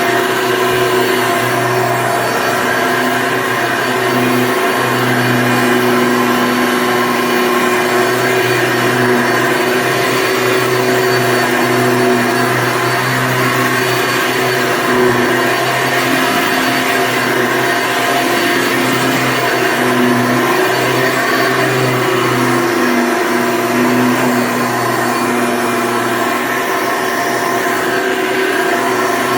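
1993 Hoover Elite upright vacuum cleaner running steadily, its motor giving an even hum with a steady whine.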